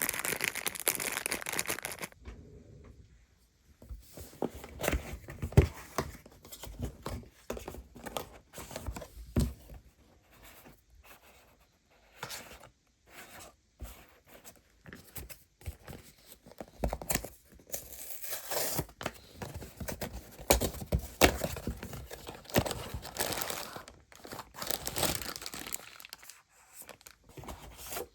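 Parcel packaging being torn open and crinkled by hand, in irregular bursts of rustling with sharp taps and clicks as the contents are handled.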